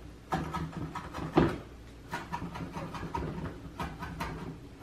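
Chef's knife chopping herbs on a wooden cutting board: a string of irregular knocks, the loudest about a second and a half in.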